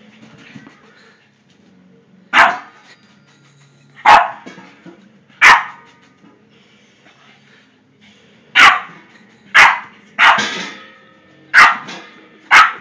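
Boston terrier barking in play at a big exercise ball: eight sharp, loud single barks, spaced a second or two apart at first and coming faster in the second half.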